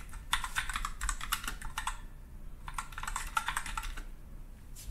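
Typing on a computer keyboard: two quick runs of keystrokes separated by a pause of about a second.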